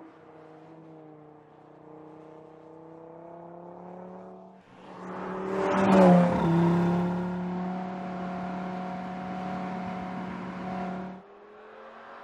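Audi RS3's 2.5-litre turbocharged five-cylinder engine running at moderate revs with a slowly rising note. About four and a half seconds in it accelerates hard to a loud peak, the pitch dipping briefly, then holds a steady high-revving note until it cuts off suddenly near the end, leaving a quieter engine note.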